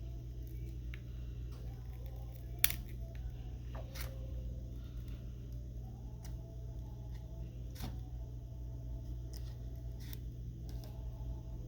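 Scattered small clicks and taps of hand tools on a phone being taken apart for repair, one sharper click about two and a half seconds in, over a steady low hum.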